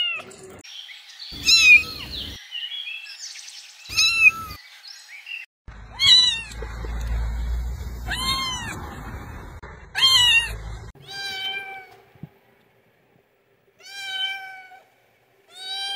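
Kittens meowing: about eight separate meows, each rising and then falling in pitch. A low rumble runs under the calls through the middle stretch.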